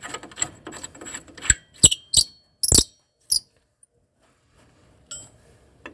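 Hand tools and metal parts clicking and clinking while working on the car's front brake: a quick run of light ticks, then several sharp louder clinks, then quiet.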